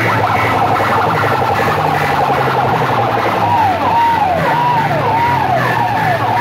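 Electronic siren effects blaring from a stack of horn loudspeakers over a steady low drone. A rapid warbling chirp gives way, about three and a half seconds in, to a falling whoop that repeats roughly every half second.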